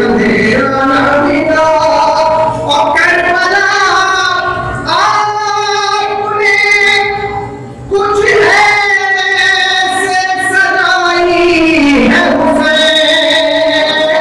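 A man singing a mourning chant (noha) solo in a high voice, amplified through a microphone, drawing out long held and gliding notes with a short break for breath about eight seconds in.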